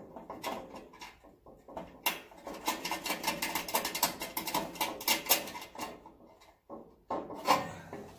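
Small metal hardware clicking and rattling as a nut is threaded by hand onto a stainless steel screw through a diamond-plate tray and its mounting bracket, with one louder knock near the end.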